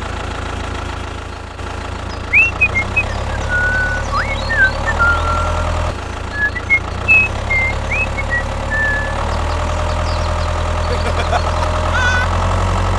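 Small motors of miniature DIY construction machines running with a steady low hum. Short whistled chirps sound over it through the middle.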